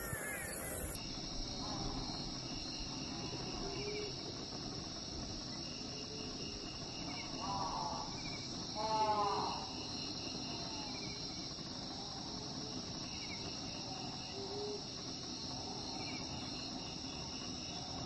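Steady high-pitched chorus of crickets and other insects, setting in about a second in. Around the middle a bird calls in two quick runs of falling notes, the second the loudest sound here.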